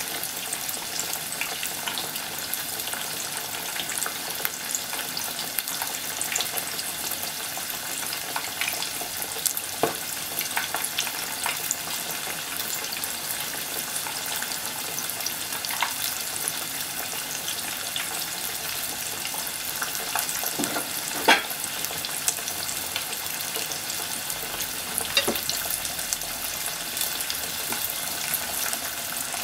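Breaded pork cutlet (tonkatsu) deep-frying in a pot of oil: a steady sizzling hiss with scattered crackling pops, one sharp pop standing out about two-thirds of the way through.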